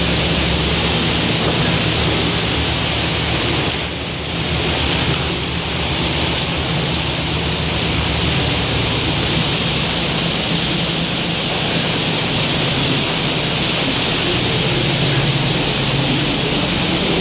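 Motor City Wash Works tunnel car wash running, with water jets spraying steadily over a car while cloth brushes work it. A low, steady hum from the wash machinery sits underneath, and the sound dips briefly about four seconds in.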